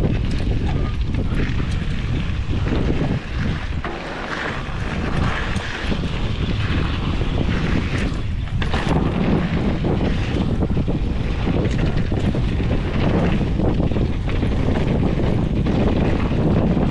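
Wind buffeting the microphone of a handlebar-mounted camera on a mountain bike riding down a dirt singletrack, with tyre noise and a few small rattles from the bike. The rush drops briefly about three to four seconds in.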